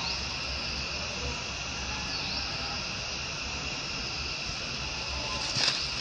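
Steady high buzzing of insects in the trees, with a low rumble underneath. A short, sharp, louder sound comes near the end.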